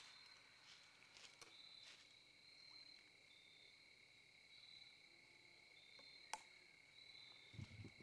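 Faint, steady chorus of crickets trilling in two high tones, with a few soft clicks. Some low bumps near the end as the camera is handled.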